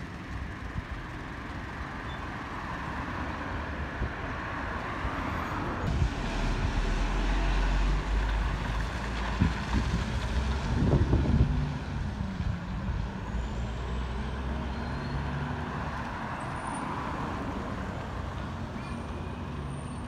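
Street traffic with a heavy vehicle's engine passing. A deep rumble builds about a third of the way in and is loudest about halfway through, then a steady engine drone fades.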